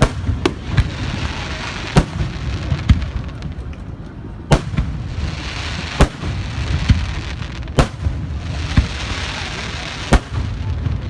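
Fireworks going off: about seven sharp bangs one to two and a half seconds apart, with a crackling hiss and a low rumble between them.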